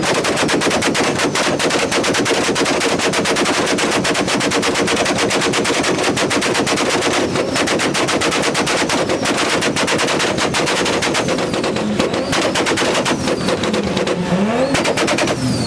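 A car's engine held on a two-step launch-control rev limiter, the exhaust popping in a rapid, unbroken string of bangs. Near the end the revs drop and climb again.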